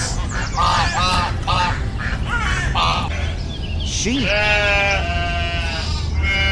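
Ducks quacking in a quick series of short calls, then a sheep bleating twice in long calls.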